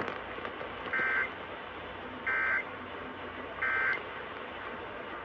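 Emergency Alert System end-of-message (EOM) data signal: three short bursts of shrill warbling data tones, about 1.3 s apart, closing the test broadcast. A steady radio hiss runs underneath.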